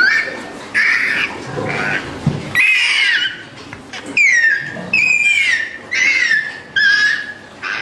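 Piglet squealing over and over while it is handled and set down: about seven high calls in a row, each dropping in pitch.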